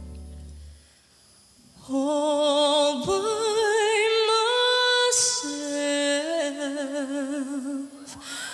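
A held orchestral chord fades away, and after a short pause a solo female voice sings unaccompanied from about two seconds in. She holds long notes with wide vibrato that climb and then fall back, with a brief breathy hiss in the middle.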